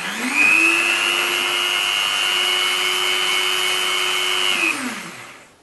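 BDCAT 180 W rotary tool spinning up, its motor driving a flexible shaft with a sanding drum fitted and running free. It holds a steady high whine for about four seconds, then is switched off and spins down near the end.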